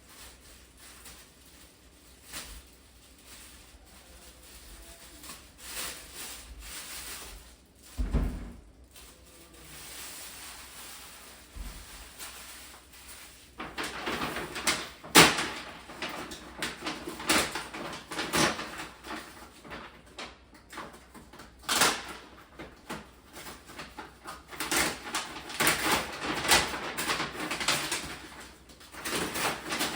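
Kitchen handling sounds: knocks, clatter and rustling as things are picked up and put down, with cupboard doors opening and closing. Sparse at first, then busy from about halfway through.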